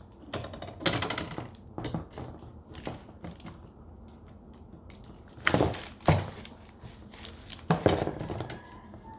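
Parts of a clothes-hanger rack being handled and fitted together: scattered clicks and knocks, with louder knocks about five and a half and six seconds in and again near eight seconds.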